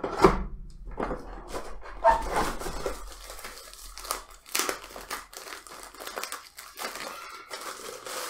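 Thin plastic wrapping crinkling and rustling as it is handled and pulled off a mesh Wi-Fi router unit, in irregular crackles.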